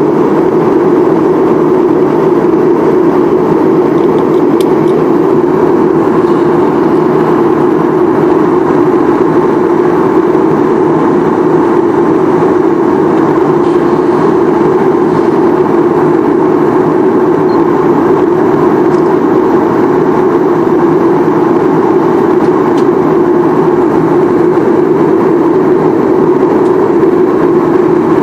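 Steady cabin noise of an airliner in flight, heard from inside: the constant sound of the jet engines and air rushing past the fuselage, low and even with no change in pitch.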